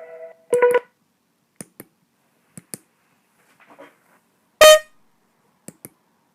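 Homemade smartphone's speaker: its electronic ringtone chord stops, sounds again briefly, then falls silent. Pairs of sharp clicks follow three times, and there is one short, loud, buzzy beep a little past the middle.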